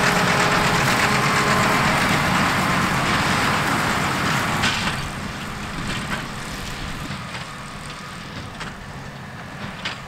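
John Deere tractor running under load as it pulls a large square baler baling straw, its engine hum mixed with the baler's steady mechanical clatter. The sound drops off about halfway through as the outfit moves away.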